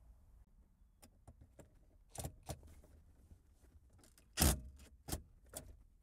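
Light clicks, clinks and knocks of hand tools being handled as one Phillips screwdriver is swapped for another; the loudest knock comes about four and a half seconds in.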